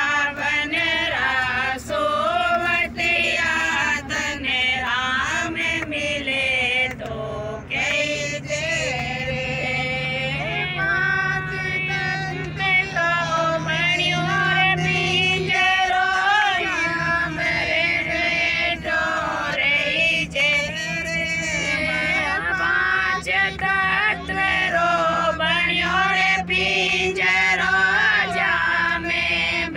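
Women singing a devotional bhajan together, a held and melismatic group vocal line, over a steady low drone that drops out briefly about halfway through.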